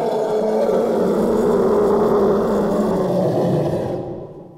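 Elephant giving one long, rough call that fades out near the end.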